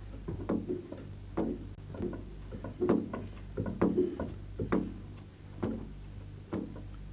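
Hardwood logs being chopped by hand with axe-like tools: irregular sharp chopping blows, about one to two a second, over a steady low hum.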